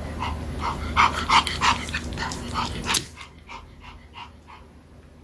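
Pomeranian giving a rapid run of short, high barks, about three or four a second. They are loudest about a second in and fainter after about three seconds.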